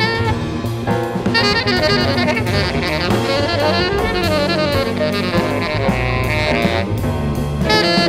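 Instrumental jazz background music: a saxophone melody over a drum kit.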